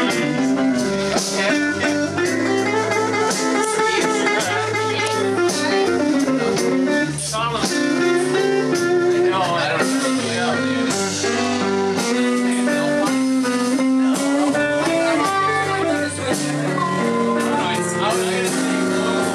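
Live blues band playing an instrumental passage: electric guitar, bass line, keyboard, drum kit and saxophone together, with held notes over a walking bass and a steady beat.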